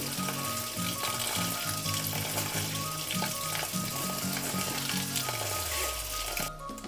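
Tap water pouring through quinoa in a stainless steel mesh sieve and splashing into a steel sink, with a spoon stirring the wet grains, as the quinoa is rinsed. Soft background music plays under it, and the water sound cuts off suddenly near the end.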